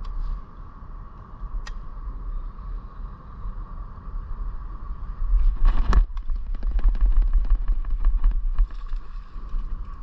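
Traffic rumbling on the road bridge overhead. About six seconds in comes a brief sharp noise, followed by a few seconds of rapid ticking.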